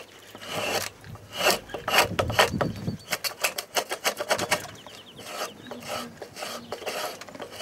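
Spokeshave cutting shavings off a wooden post in repeated scraping strokes, refining a surface roughed out with a draw knife. A few longer strokes come first, then a quick run of short strokes midway, then lighter ones.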